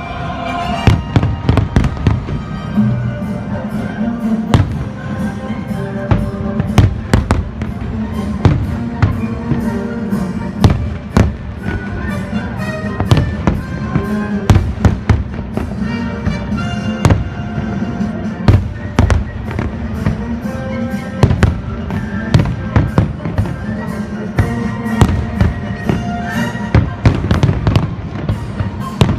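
Fireworks bursting in a rapid, irregular string of sharp bangs and booms, with music from the show's soundtrack playing underneath.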